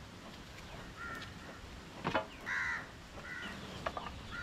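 A bird's short, harsh calls, repeated about four times at roughly one-second intervals, with a single sharp knock about two seconds in.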